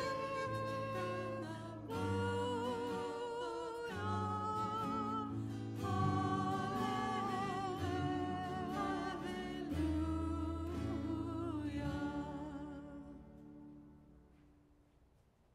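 Small church praise band singing a hymn: voices with acoustic guitar and electric keyboard. The song ends about twelve seconds in, its last chord dying away.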